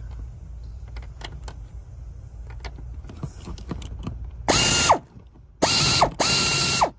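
A few light clicks of a ratchet on the rear shock's upper mount nut, then three short, loud bursts of a cordless power tool spinning the nut, each about half a second long with a steady whine.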